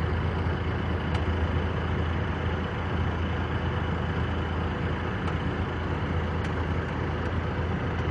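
Heavy truck running steadily: a continuous low engine drone with road noise and no change in pace.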